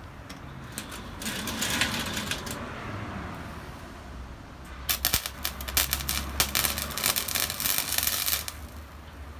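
Sealey Mighty MIG100 flux-core MIG welder's arc crackling in two bursts, a short one of about a second and a longer one of about three and a half seconds: tack welds being laid on thin sheet steel.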